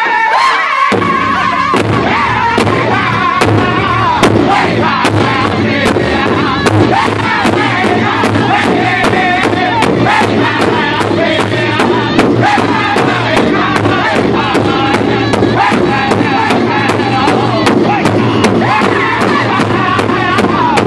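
Powwow drum group: several men sing loudly in high, wavering voices while beating a large hide powwow drum together in a steady, even beat. The drum comes in about a second in, under the singing.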